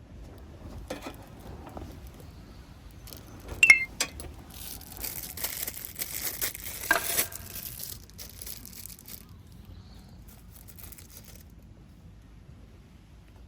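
Small objects being handled: a few light knocks, then a single ringing clink of glass or metal, followed by a few seconds of crinkling, as of a packet or plastic bag, with another clink in it.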